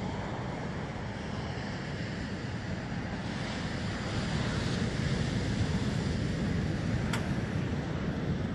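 Ocean surf washing onto a sandy beach, a steady rush that grows louder about three seconds in, with wind buffeting the microphone.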